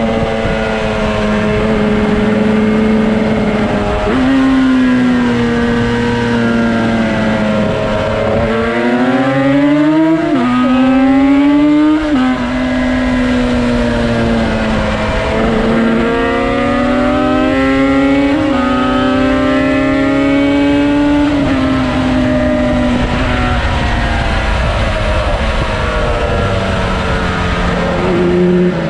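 Yamaha RD350 two-stroke twin engine in a Cagiva Mito race bike, being ridden hard on track. The pitch climbs as it accelerates, drops at each upshift, and falls away when the rider backs off, before climbing through the gears again.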